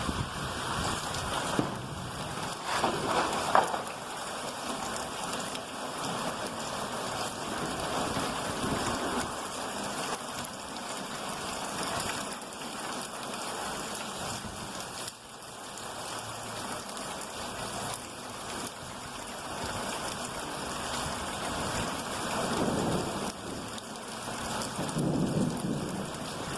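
Steady rain of a thunderstorm, with thunder rolling louder about three seconds in and again near the end.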